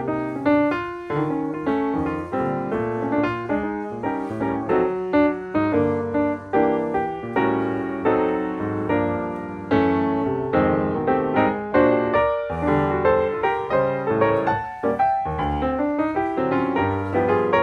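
Background piano music, with a steady run of struck notes and chords.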